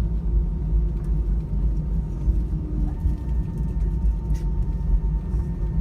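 Steady low rumble of an Airbus A319 cabin as the jet taxis after landing, with a faint steady whine that becomes clearer about halfway through.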